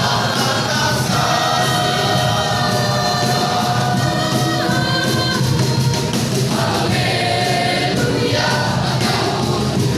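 Church choir singing a sacred song in parts, with sustained held chords.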